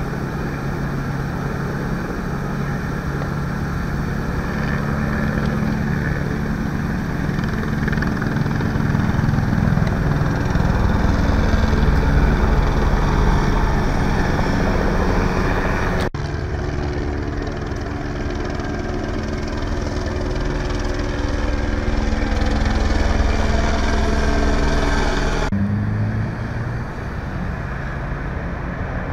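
Helicopter flying overhead, its rotor and engine making a steady drone that swells somewhat as it passes close. The drone changes abruptly twice, about halfway through and near the end, but carries on after each change.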